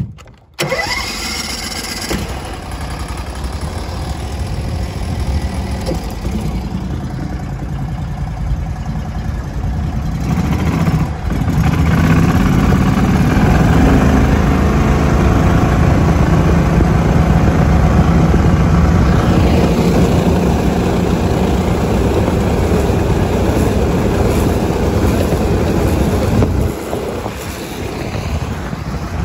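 A 23 hp Mud Buddy Mini surface-drive mud motor starts about half a second in and runs steadily, then runs louder under more throttle from about twelve seconds as the boat gets under way, easing back near the end.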